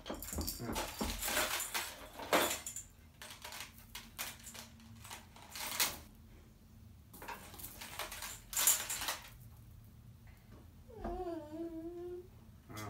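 Plastic toys and strings of beads rattling and clattering as they are picked up and handled, in scattered short bursts. About eleven seconds in, a young child makes a brief vocal sound.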